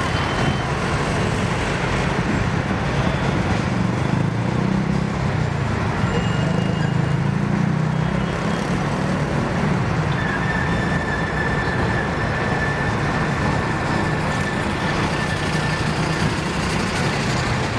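Road traffic at a busy city intersection: cars and city buses passing in a steady, continuous low rumble of engines and tyres. A thin, steady high whine joins in for several seconds from about ten seconds in.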